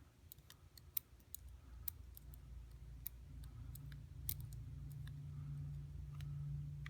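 Scattered small metallic clicks and ticks as the pin-tumbler core of a US Lock padlock is taken apart, its serrated pins removed one by one. A low steady hum builds underneath from about two seconds in.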